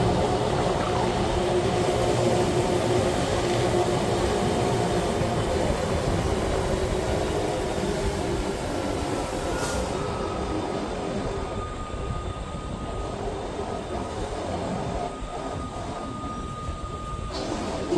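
Wengernalpbahn rack-railway train running, a steady rumble and rattle of the moving train. About halfway through a thin, steady, high wheel squeal comes in.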